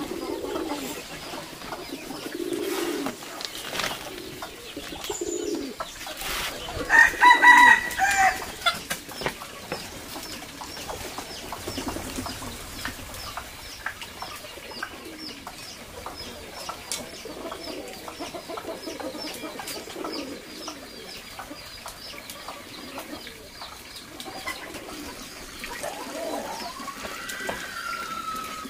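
Farmyard birds: doves cooing in short low phrases, and chickens calling, with one loud drawn-out call about seven seconds in.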